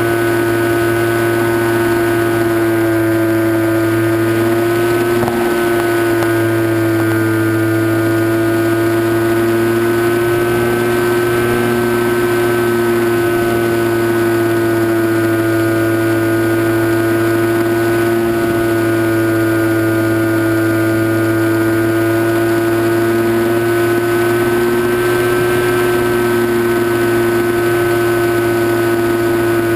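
Electric motor and propeller of an RC flying wing running at steady cruise throttle, heard from on board: a steady whine that rises and falls slightly in pitch now and then.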